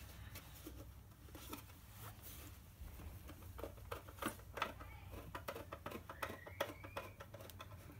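A screwdriver being twisted by hand to drive a screw into a wooden birdhouse panel: faint, irregular clicks and small knocks, thickening after about three seconds in.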